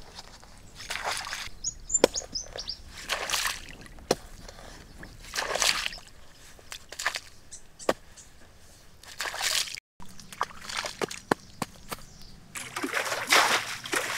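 Shallow muddy pond water splashing and sloshing in separate throws every two seconds or so, then more continuous splashing near the end as water is scooped and thrown with a basin to bail out the pond.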